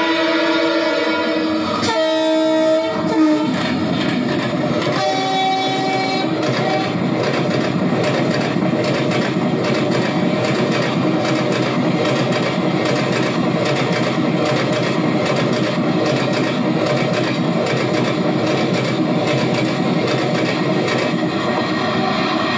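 WDP4 diesel locomotive horn blowing for about three seconds, with a short break, then a second shorter blast a few seconds later. After that comes the steady rumble and clatter of the express's passenger coaches rolling past on the rails.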